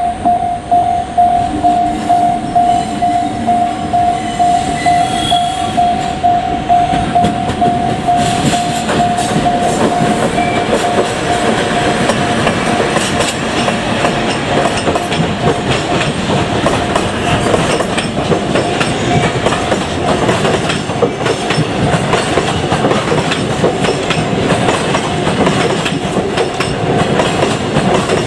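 A level-crossing warning bell dings rapidly at about two strikes a second and fades by the middle. Meanwhile a freight train hauled by an ED76 AC electric locomotive rumbles past from about eight seconds in, its wheels clattering over the rail joints.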